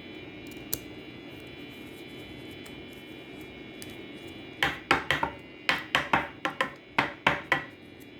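About halfway through, a quick uneven run of roughly a dozen sharp clicks and knocks, like hard plastic or card being handled and tapped on a tabletop, over a steady background hum.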